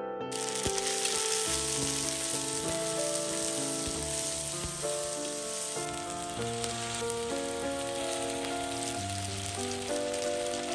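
Lemongrass paste sizzling as it fries in a hot wok, a steady hiss that starts suddenly just after the paste goes in, with fish sauce and sugar added to it as it cooks. Soft piano music plays underneath.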